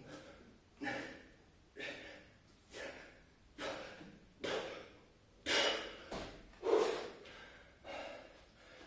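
A man breathing hard and fast, with forceful exhales about once a second, the loudest near the middle. He is out of breath from a set of push-ups in a high-volume bodyweight circuit.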